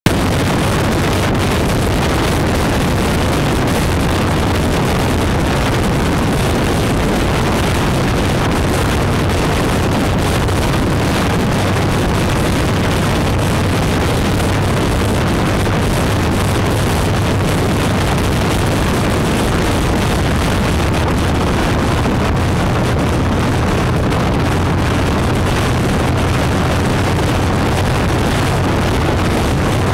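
Motorcycle cruising at steady highway speed: a steady low engine drone under heavy wind rush buffeting the microphone.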